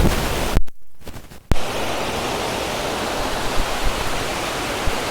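Waterfall rushing: a steady hiss of falling water. It cuts out abruptly for about a second, just over half a second in, then comes back unchanged.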